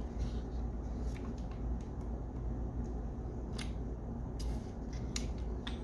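A few short, sharp clicks and taps of AR-15 buffer tube and mounting parts being handled and fitted together, over a steady low hum.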